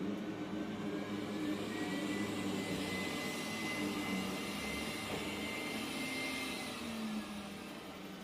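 Roborock Q7 Max robot vacuum running as it cleans: a steady motor hum with a suction-fan whine that rises slightly about a second in and falls back near the end.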